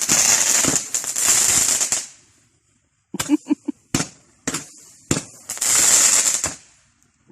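Consumer fireworks going off: long hissing, crackling bursts, with a run of sharp bangs between them in the middle.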